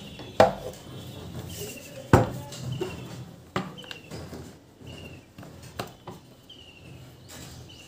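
A few sharp metallic clicks and knocks of tools and small parts being handled on a workbench, the loudest about two seconds in. A bird chirps repeatedly in the background, with short falling calls.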